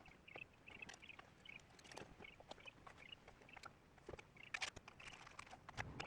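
Faint, scattered small clicks and taps, with a quick series of faint, high, short chirps repeating a few times a second.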